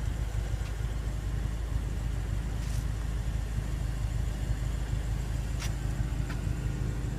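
Steady low rumble with a faint constant hum, and a few light clicks about three, five and a half, and six seconds in.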